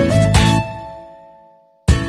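Background music: a melodic track stops about half a second in and dies away to near silence. Near the end a new song starts suddenly with strummed acoustic guitar.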